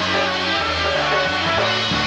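Live polka band playing an instrumental number, with a bass line stepping between notes under sustained melody tones.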